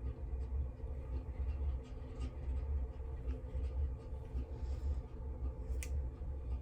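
Low steady rumble, with faint small ticks and scrapes over it and one sharper click near the end.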